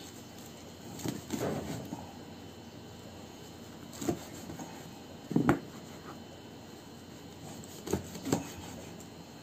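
Lagundi leaves being torn in half by hand: a few short rips and handling noises, one just after a second in and others near four, five and a half and eight seconds.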